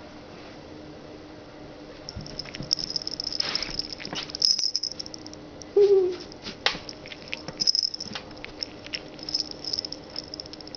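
A tabby cat pawing and shifting about on a cloth-covered table right beside the microphone. It makes irregular soft scrapes and taps, and its collar tag jingles lightly, starting about two seconds in. One brief pitched squeak comes about six seconds in, the loudest moment.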